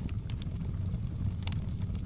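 Wood fire crackling: a steady low rumble of the flames with scattered sharp pops and snaps.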